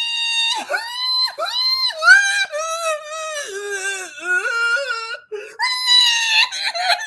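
A man singing and wailing loudly in a high falsetto, without words. He holds long notes that swoop and step downward in pitch, breaks off briefly, then launches into another high held note.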